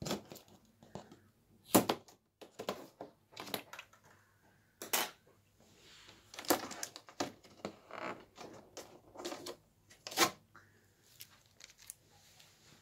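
Hands handling a cardboard appliance box and pulling off its plastic packing strap: irregular knocks, scrapes and crinkles, with three sharper snaps about two, five and ten seconds in.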